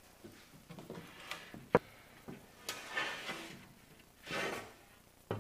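A small blade scraping old silicon off the edge of a loose tractor cab glass pane in short scratchy strokes, with one sharp tap about two seconds in. Near the end the glass pane knocks down onto a wooden bench.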